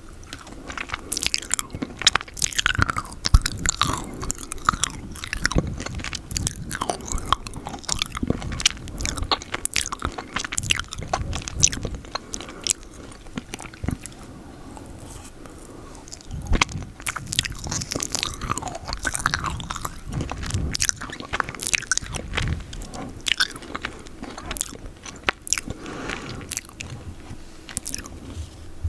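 Close-up mouth sounds of eating peanut butter off a spoon: sticky, wet smacking, lip and tongue clicks and chewing, in quick irregular bursts with a quieter stretch in the middle.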